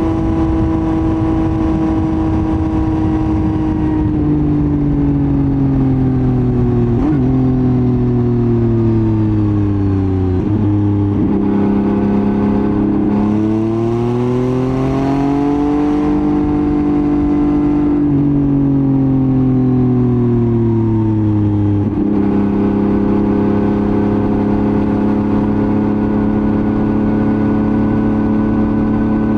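Yamaha MT-09's three-cylinder CP3 engine running through a Roadsitalia titanium full exhaust while riding. It holds a steady note, then drops slowly in pitch as the throttle eases, climbs back, drops again and settles into a steady note for the rest.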